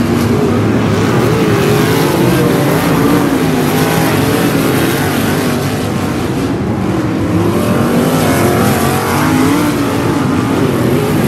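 Several winged sprint car engines racing around a dirt oval, their overlapping tones rising and falling in pitch as the cars go through the turns and down the straights.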